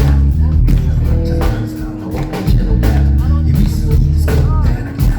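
Live band music: heavy bass and drums with guitar, played loud in a club.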